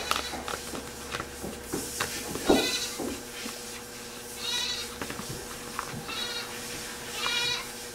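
Goats bleating, about four separate calls each under a second long, over light clicking and scraping from a plastic spoon stirring a stiff molasses dough in a plastic tub.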